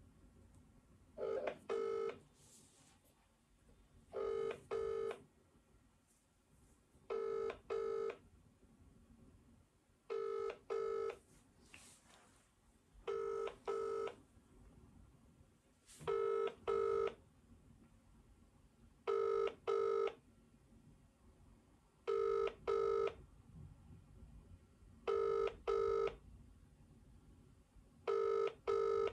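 Telephone ringback tone playing through a smartphone's speaker: British-style double rings, two short tones about every three seconds, ten times over, as the outgoing call rings unanswered.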